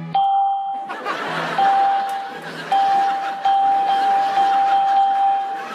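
A computer's alert chime sounding over and over as pop-up windows appear, each new chime cutting in on the last, about six in all. An audience laughs underneath.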